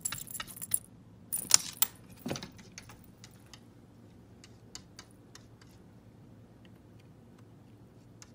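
Metal tags on a cat's collar jingling in quick clusters as the cat paws at the window screen, then only scattered single clinks that thin out over the rest of the stretch.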